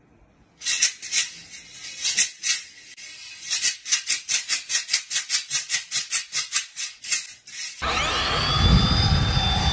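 A rhythmic shaker-like rattle, about three to four strokes a second and quickening. Near the end an angle grinder starts up: its whine rises and levels off into a steady high tone over a low rumble.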